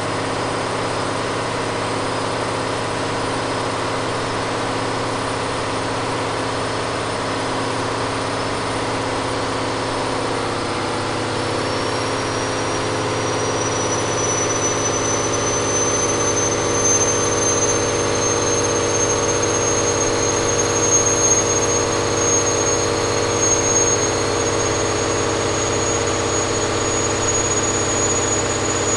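Caterpillar 3508B V8 diesel engine running steadily on a dynamometer. About a third of the way in its note shifts and a thin high whine starts to climb slowly as the engine gets a little louder.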